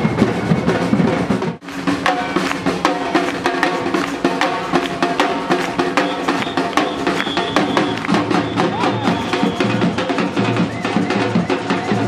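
Music driven by loud drums and percussion, a dense run of drum strikes with some held pitched notes above them. The sound drops out for an instant about a second and a half in, then carries on.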